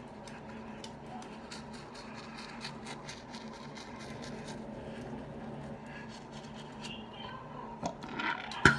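A toothbrush scrubbing teeth, with fast irregular scratchy strokes, close to the microphone. Near the end there is a sharp, loud thump.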